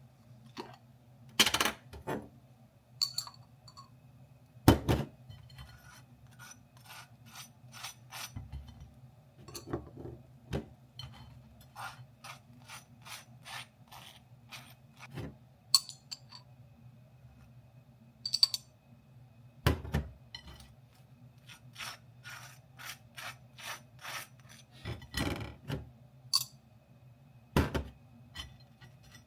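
Kitchen food preparation: a run of sharp, irregular clicks and short scrapes of utensils, with a few louder knocks, over a steady low hum.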